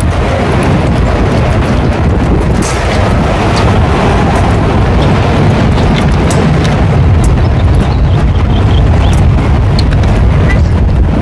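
Wind buffeting the microphone: a loud, rough, steady rumble, with a few light clicks over it.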